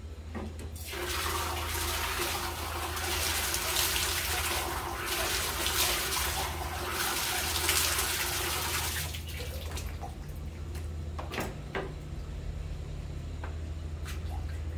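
Water scooped up with a plastic dipper and poured back into a plastic basin, splashing continuously for several seconds before stopping about nine seconds in. It is followed by a few light knocks and small splashes as a hand works in the basin, over a steady low hum.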